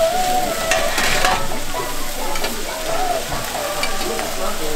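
Beef skirt steak sizzling as it fries, with a louder burst of sizzle and stirring about a second in.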